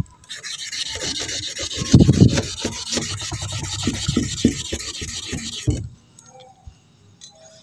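An agate cabochon rubbed by hand in circles on wet 800-grit sandpaper, a gritty scraping that stops about six seconds in. This is the 800-grit stage of hand polishing, grinding out the scratches left by the coarser 240-grit paper.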